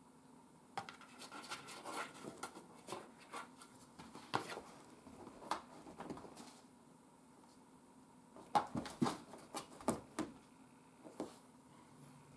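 A cat scratching and pawing at a cardboard box and the carpet: irregular scratches and taps in two spells, the second, starting about eight and a half seconds in, the loudest.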